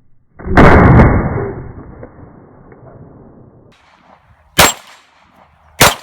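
Glock 19 9mm pistol shots hitting an AR500 steel gong. Less than half a second in comes a deep, muffled boom that dies away over about three seconds. Later come two sharp cracks with a brief steel clang, about a second apart.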